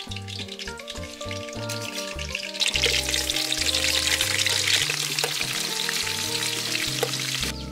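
Pork ribs frying in hot oil in a wok: sizzling and spitting that gets much louder about two and a half seconds in and cuts off sharply near the end. Background music with steady notes plays underneath.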